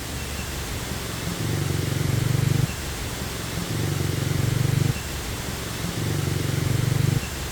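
Steady rushing water from a waterfall. Over it, a low pulsing buzz swells and then cuts off sharply, three times about two seconds apart.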